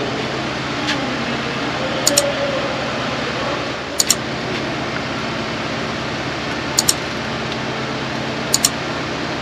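Steady mechanical hum, broken four times by a quick double click: the mouse-click sound of an on-screen like-and-subscribe animation.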